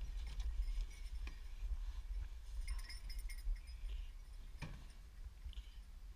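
Light metallic clinks and handling knocks, clustered about three seconds in with one sharper knock near the end, over a low wind rumble on the microphone.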